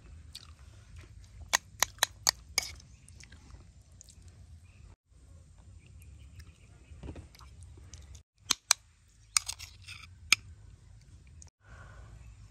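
Close-up eating sounds: a metal spoon clinks sharply against the plate and serving pan, four quick clicks and then another bunch later on, with soft chewing in between.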